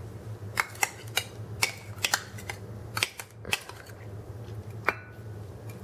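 A spoon scraping and tapping applesauce out of a measuring cup into a ceramic mixing bowl: a string of irregular light clinks over a steady low hum.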